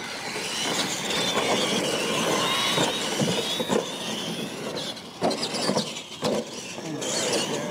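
Radio-controlled monster trucks racing across a dirt track, their motors and gears whining in a wavering pitch over tyre and dirt noise. There are a couple of sharp thumps past the middle.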